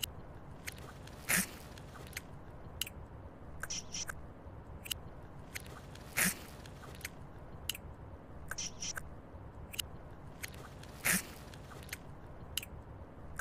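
Chewing and biting while eating a hamburger: a run of small wet clicks and smacks, with a louder bite about every five seconds, three in all.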